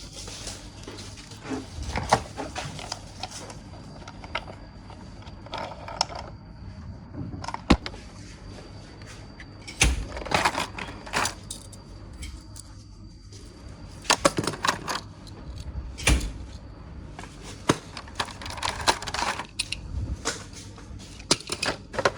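Plastic toy-figure parts clicking and knocking as the figure is handled: irregular sharp clicks and clatter, some in quick clusters.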